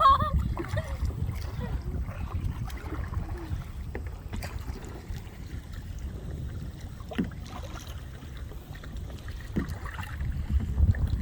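Wind rumbling steadily on the microphone on a kayak, with a few faint knocks scattered through.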